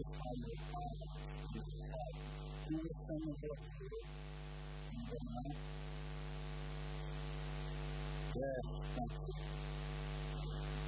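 A steady electrical hum throughout, with a faint voice coming in softly in short phrases.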